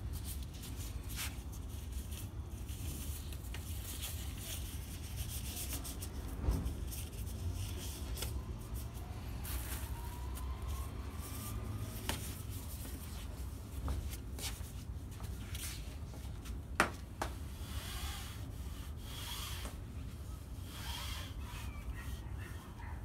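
Gloved hand rubbing a paper towel over a sliding screen door and its frame: an irregular wiping hiss over a steady low rumble, with a couple of sharp knocks.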